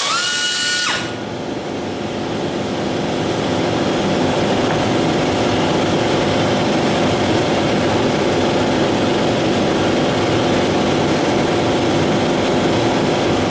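Pneumatic cut-off wheel whining as it grinds through metal, its pitch wavering under load, then stopping about a second in. After it, a loud, steady mechanical drone with a hiss carries on.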